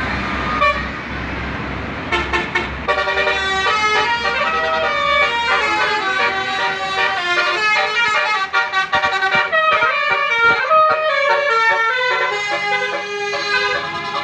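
A bus's basuri 'telolet' multi-tone horn playing a quick tune of stepped notes, several pitches sounding at once. It starts about two seconds in, after a hiss and low rumble.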